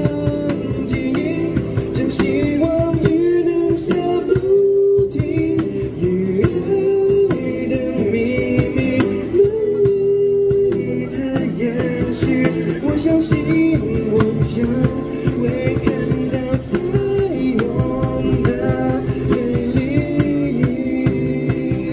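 Live amplified busking: a male voice singing a slow pop ballad over strummed acoustic guitar and a cajón beat.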